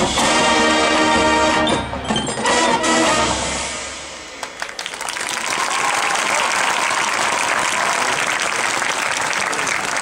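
Marching band brass holding loud chords, then a few short accented hits; about four seconds in the music stops and the crowd applauds and cheers.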